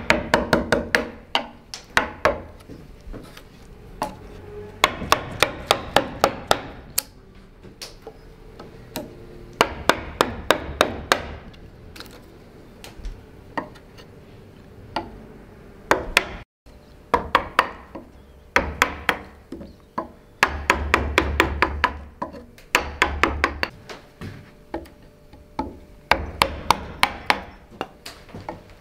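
A round wooden carver's mallet strikes a gouge, cutting chips from a block of wood. The blows come in quick runs of about four a second, with short pauses between the runs.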